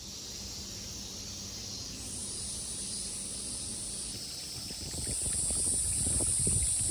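Cicadas buzzing in a steady high drone that comes in about two seconds in and grows stronger about five seconds in, over a low outdoor rumble with a few soft low knocks near the end.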